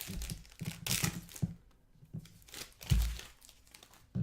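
Wrapper crinkling and tearing as a pack of baseball cards is opened and the cards handled, in irregular rustling bursts, with a dull thump about three seconds in.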